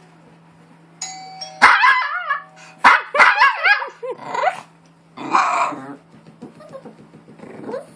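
A doorbell chime played from a phone about a second in, followed at once by a Maltese barking: a run of loud, high barks over the next few seconds, then a few softer ones near the end.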